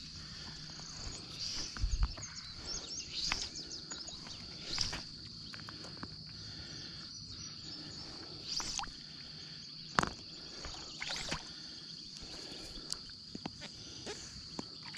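Steady high-pitched insect drone over the river, with scattered light clicks and small water sounds as fly line is handled, and one sharper click about ten seconds in.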